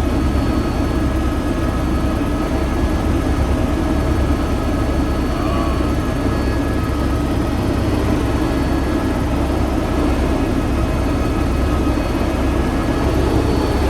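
Helicopter running steadily, its engine and rotor making a continuous loud drone with faint steady whines above it.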